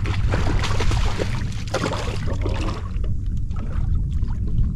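Water splashing at the side of a flats skiff where a fish is being handled in the water, over a steady low wind rumble on the microphone. The splashing thins out after about three seconds.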